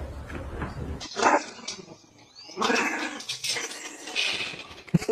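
A pet animal calling: one loud call about a second in, then a run of further calls on and off.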